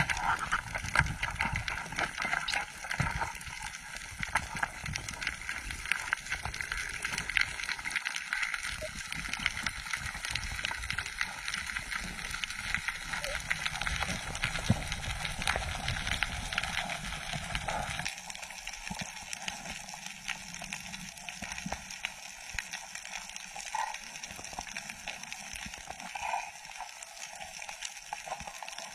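Underwater sound picked up by a diver's camera: a steady rush of water with dense crackling clicks. About halfway through, the low rumble drops away abruptly and the crackle goes on thinner.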